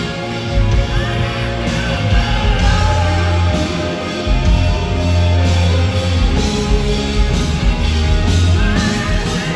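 Live rock band playing loud with electric guitars, heavy bass and drums, recorded from the audience in a large concert venue.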